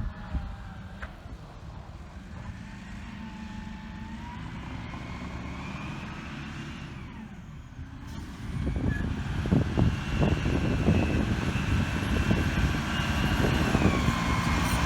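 Garbage truck running, with thin high squealing tones that drift in pitch over the low engine sound. About eight seconds in it gets louder, with clattering mixed in.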